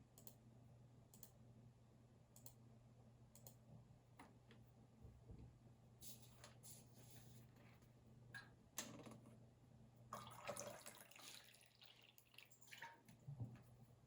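Faint computer keyboard and mouse clicks: a few scattered single clicks, then short runs of quicker tapping from about six seconds in, over a low steady hum.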